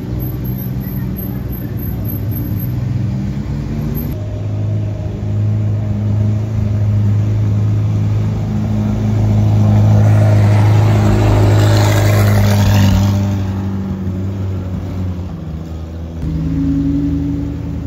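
McLaren Senna's twin-turbo V8 running at low revs as the car rolls slowly past, a steady deep drone that swells to its loudest with a rush of engine and tyre noise as it passes closest, then fades as it drives away.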